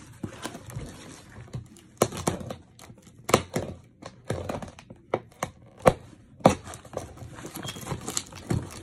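Packing tape being picked at and peeled off a cardboard shipping box, with the cardboard scratched and tapped: a string of short, irregular scrapes, ticks and tearing sounds.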